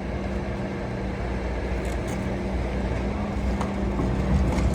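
Heavy work-vehicle engine running steadily, a low even hum, with a few faint clicks.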